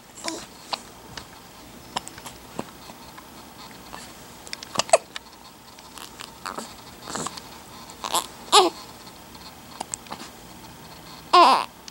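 Two children hiccuping in turn: short, sharp hiccups at irregular gaps of one to three seconds, some with a small squeak of voice. Near the end there is a longer vocal sound of about half a second.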